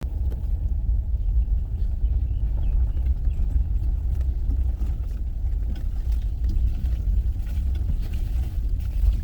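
Car driving on a rough road, a steady loud low rumble with small knocks and rattles throughout.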